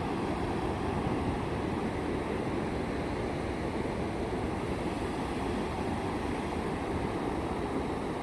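Sea waves washing on the shore in a steady, unbroken rush.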